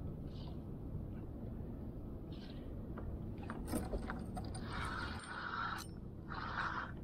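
Spinning reel being cranked in short spells of about a second each, repeating in the second half as a slow-pitch jig is worked, over a steady rush of wind and water.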